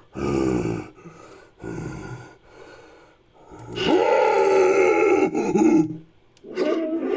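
Designed creature vocalizations, a voice mixed with animal and monster roars: two short grunting bursts, then a long, loud growling roar about four seconds in that lasts some two seconds, and another call starting near the end.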